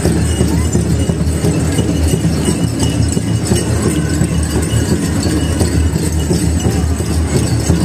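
Powwow drum group playing a large drum in a steady beat for a grass dance, with singers' voices, echoing in a gymnasium.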